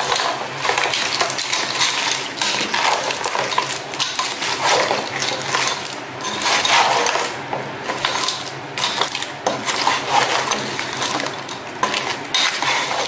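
Pieces of raw crab in the shell being stirred in a pot with a wooden spatula: the hard shells clatter and click against each other and the pan in a dense, irregular stream.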